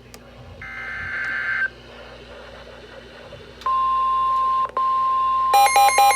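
Emergency alert tones: a steady, high, single-pitched tone, typical of the NOAA Weather Radio warning alarm tone, starts about three and a half seconds in and breaks off once briefly. About two seconds later, loud, fast electronic beeping in several alternating pitches joins it. Earlier, a short buzzy electronic tone lasts about a second.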